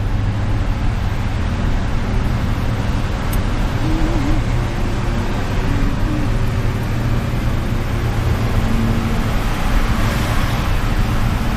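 Car driving at speed, heard from inside the cabin: a steady low rumble of engine and tyres on the road, with the road noise swelling briefly near the end.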